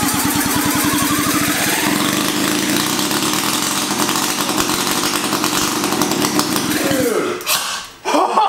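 1975 Sachs KC27 294cc rotary (Wankel) engine running on its own, rising in pitch over the first couple of seconds, then running steadily with a fast, even firing beat. A little before the end its pitch falls and it dies out, a stall they put down to low compression.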